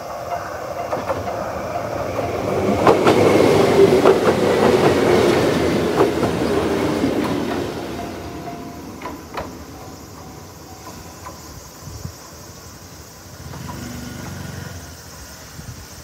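A train passing over a Japanese level crossing, its wheels clicking over the rail joints, loudest about four to six seconds in and then fading. The crossing's electronic warning bell rings steadily and stops about nine seconds in, as the crossing clears.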